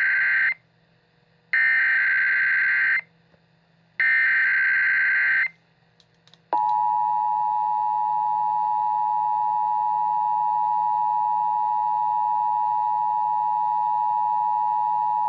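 Emergency Alert System SAME header: the tail of one burst and two more bursts of screeching digital data, each about a second and a half long. About six and a half seconds in, the EAS two-tone attention signal (853 and 960 Hz) starts and holds steady, announcing that an alert message will follow.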